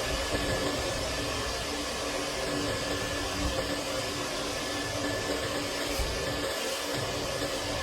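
Steady rush of air and motor hum from vent-cleaning equipment pushing air through a clogged dryer duct.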